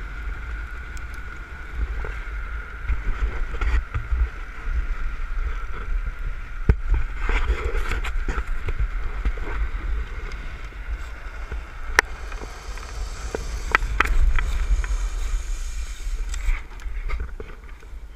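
Land yacht rolling fast over hard beach sand: heavy wind buffeting on the rider's camera microphone, a steady high hum, and scattered sharp knocks and rattles from the frame.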